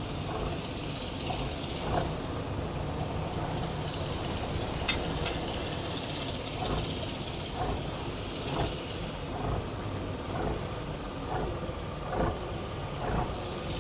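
A fishing boat's engine running steadily, a low rumble with occasional light knocks and a single sharp click about five seconds in.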